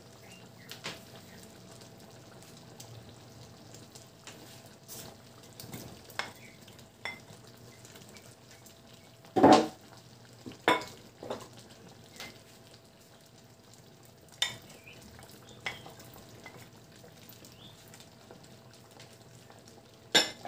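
Pork stew simmering in an aluminium wok with a faint steady sizzle. It is broken by scattered knocks and clatter as diced carrots and potatoes are dropped in, loudest in a cluster about halfway through and again at the end.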